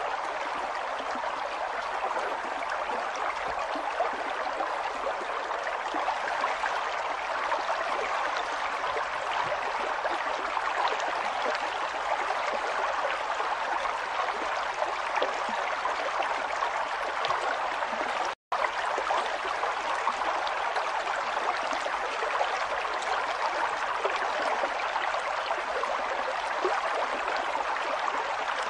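River water flowing and babbling over rocks in a steady rush. It cuts out for a split second about two-thirds of the way through.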